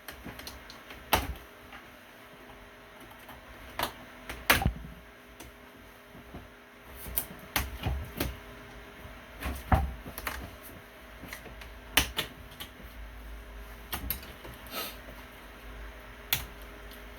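Irregular sharp clicks and knocks, a few strokes every second or two with uneven gaps, over a faint steady hum.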